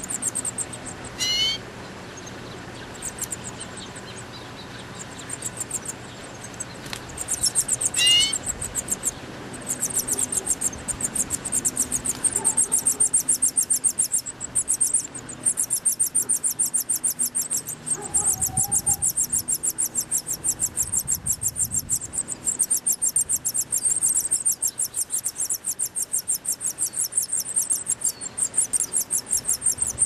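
Nestling songbirds begging: a rapid, very high-pitched chittering that comes in short spells at first and then runs almost without pause once the parent is feeding them. A couple of short rising chirps come before it.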